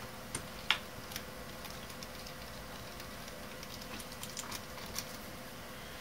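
Faint crackles and a few small clicks from a membrane keyboard's clear rubber dome sheet being peeled off the membrane and plastic case, the two sharpest clicks within the first second.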